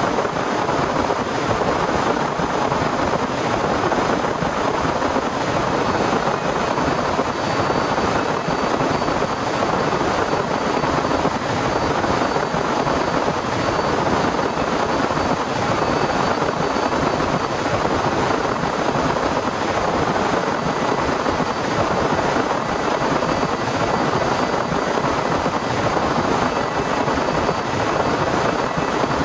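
Torrential rain falling in a steady, dense downpour with no let-up.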